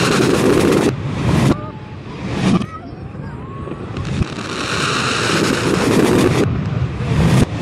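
Aerial fireworks heard played backwards: each burst comes as a swelling rush of crackle and rumble that stops sharply instead of decaying. Several of these come in turn, the longest building through the middle and cutting off about two thirds of the way in.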